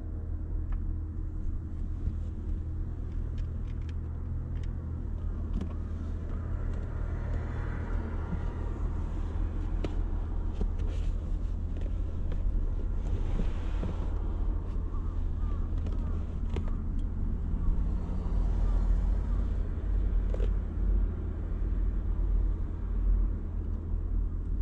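Steady low rumble, with rustling and small knocks as a person shifts around on a bed platform inside a car.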